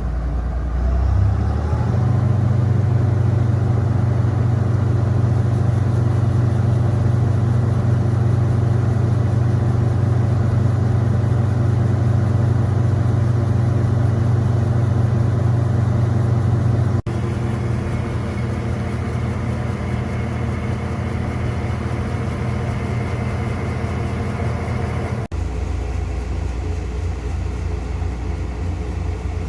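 Farm machinery's diesel engine running steadily, with a low engine tone. The sound changes abruptly twice, as if cut between shots.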